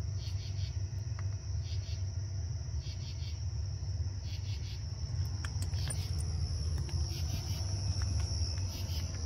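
Night insects chirping: a steady high trill with pulsed chirps about once a second, over a continuous low rumble.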